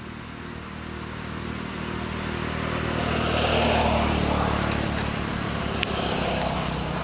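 A motor vehicle's engine passing by, rising to its loudest about halfway through and then fading, with a sharp click near the end.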